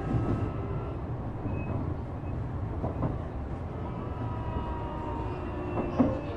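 Interior running sound of a Shizuoka Railway A3000-series electric train with Toyo IGBT VVVF inverter control: a steady low rumble of wheels on rail, faint inverter whine tones drifting slightly lower in pitch, and a few short knocks, one about halfway and two near the end.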